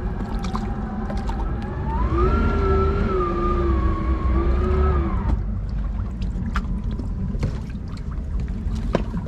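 Centurion FI25 wake boat's inboard engine idling with a low rumble as the hull comes alongside the dock. From about two seconds in, a drawn-out squeal lasts about three seconds, the hull fender rubbing against the dock edge.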